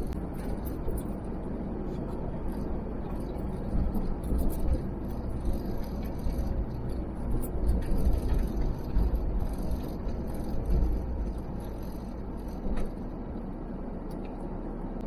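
Four-wheel-drive vehicle driving along a slippery dirt track, with a steady low engine rumble and uneven bumps.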